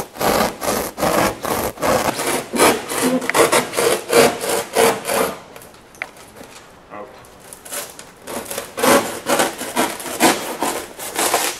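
A hand blade sawing through foil-faced rigid foam insulation board in quick back-and-forth strokes, about three a second. The strokes pause for about three seconds midway, then start again.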